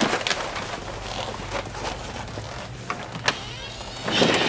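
Low room hum with a few faint clicks, then one sharp click about three seconds in as a door latch is worked. Rustling noise swells near the end as the door is opened.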